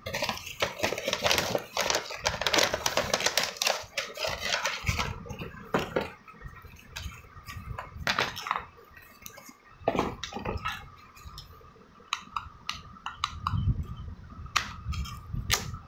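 Hard plastic clicking and clattering as a toy car's remote control is handled, dense for about the first five seconds and then as scattered sharp clicks, with a faint steady high tone underneath.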